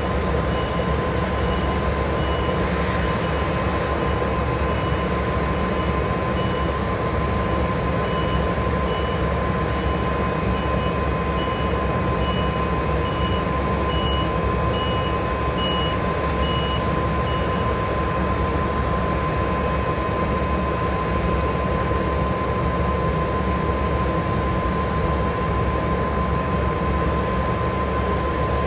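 Boeing 737-800 airliner running steadily at the stand before pushback: a constant whine over a broad jet rumble. A faint high pulsed tone sounds over it and stops about two-thirds of the way through.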